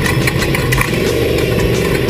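Off-road race vehicle's engine running steadily under power, with many short rattles and knocks over it.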